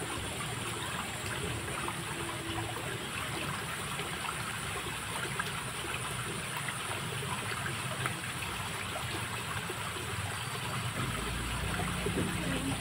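Steady running water of a small stream trickling. A low hum joins near the end.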